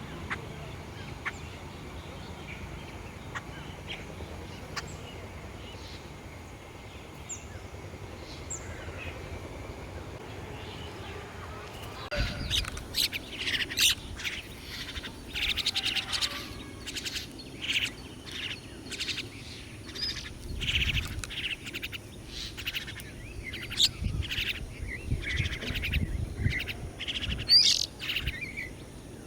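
Small birds chirping: only a few faint, scattered chirps at first, then from about twelve seconds in a busy, loud stretch of many quick chirps and twitters from several birds.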